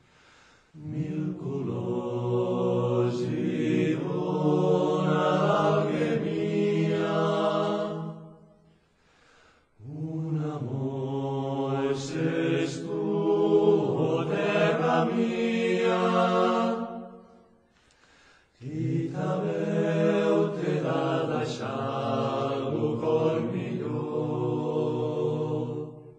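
A Catalan choir singing, in three long phrases of about eight seconds each with brief breaths between them.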